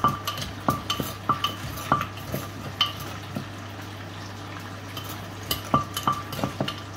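Wooden pestle pounding in a clay mortar: sharp knocks about twice a second, each with a short ring, stopping for about two seconds midway and then starting again. A steady low hum runs underneath.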